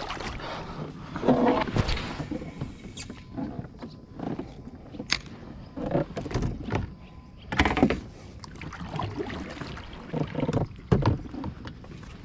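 Irregular knocks and handling noises on a fishing kayak, scattered over a low steady background hiss.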